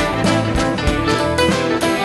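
Folk band music with acoustic guitars and fiddle over a steady beat.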